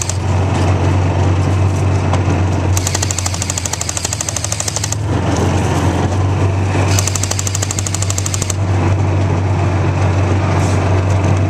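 John Deere Gator utility vehicle's engine running as it drives, with a steady low hum and a rapid, even rattle. A higher clatter comes and goes a few times.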